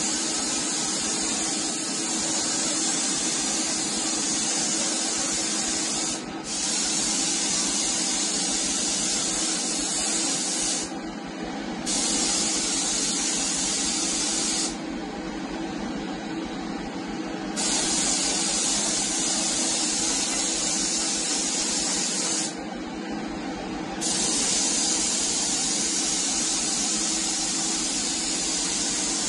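Gravity-feed spray gun hissing as compressed air atomises paint onto a panel. The hiss cuts off four times as the trigger is released, for up to about three seconds each time. A steady low hum runs underneath.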